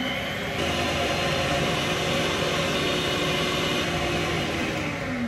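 Electric mixer beating egg whites and icing sugar in a stainless steel bowl, whipping them toward stiff peaks. It runs steadily at high speed, then its pitch falls as it winds down near the end.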